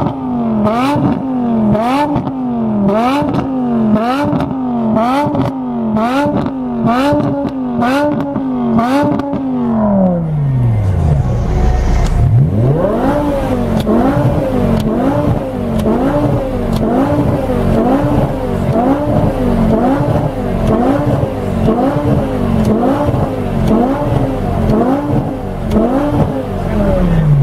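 BMW M6 E63's 5.0-litre V10 through an Eisenmann sport exhaust, revved in quick repeated blips, a little more than one a second. Near the middle the revs fall back to idle for a couple of seconds before the blipping resumes.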